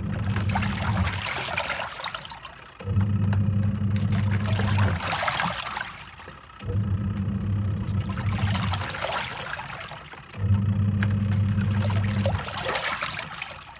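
Twin-tub washing machine in its wash cycle: the motor hums in runs of about two seconds that stop and restart roughly every four seconds as the pulsator reverses direction. Water sloshes and splashes throughout.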